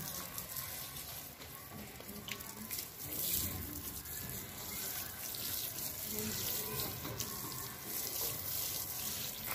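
Water showering from a watering can onto loose, wet soil around freshly planted seedlings: a steady splashing.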